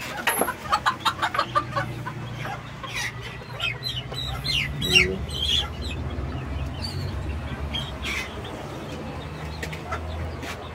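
Ko Shamo chickens clucking, a quick run of short clucks in the first two seconds, then scattered short high peeps from the young birds.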